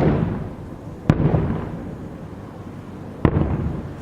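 Aerial firework shells bursting: two sharp booms about two seconds apart, each trailing off in a low rolling rumble.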